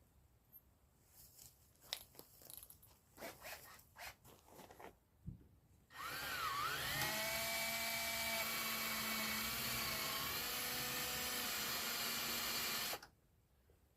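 A few small clicks and knocks, then about six seconds in a power drill spins up and runs steadily for about seven seconds, drilling into a rivet, before stopping abruptly. The bit may be too small to take the rivet out.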